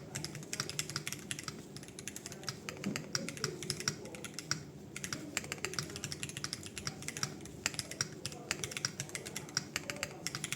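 Fast, continuous typing on a foamless Hall-effect mechanical keyboard: Rule60 V3 case with the Aula Win60HE Max plate and PCB, UR Ice Ultra switches and PBT doubleshot keycaps, a quick run of key clacks with a short pause about halfway through.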